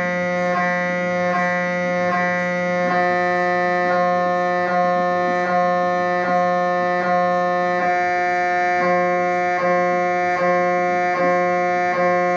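MRI scanner's gradient coils buzzing during a scan sequence: a loud, steady, pitched buzz with many overtones, beating with a slight regular pulse about every three-quarters of a second.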